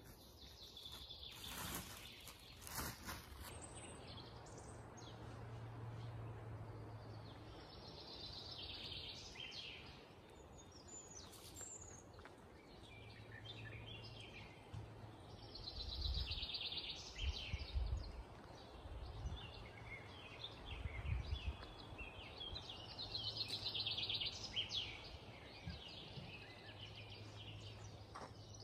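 Songbirds singing in a forest, with a fast high trill that returns every seven or eight seconds among shorter chirps, over a faint steady hush. A few dull low thumps come in the middle.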